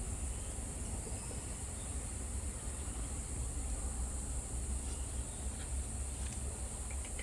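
Rainforest ambience: a steady high insect hiss over a low rumble, with a few faint clicks. Right at the end, a rapid string of short high chirps begins.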